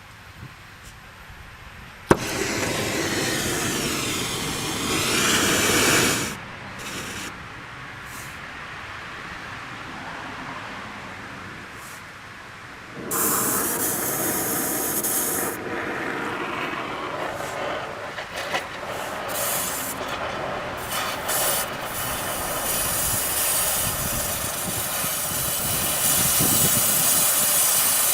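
Cutting torch hissing as it burns through seized bumper bolts. It starts with a sharp pop about two seconds in, drops back to a quieter hiss in the middle, then comes up loud again about halfway through.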